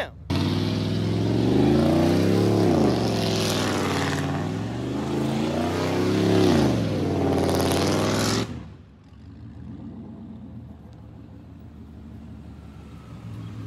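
Chevrolet OBS pickup's engine revved hard, its pitch climbing and falling about three times with a hiss over it, then dropping suddenly to a quieter, steady low running about eight and a half seconds in.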